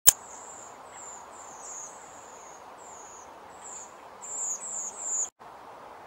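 Barn owl giving a series of short, high-pitched calls, each falling slightly in pitch, the loudest three coming close together about four to five seconds in. A sharp click at the very start, and the sound cuts out abruptly just after five seconds.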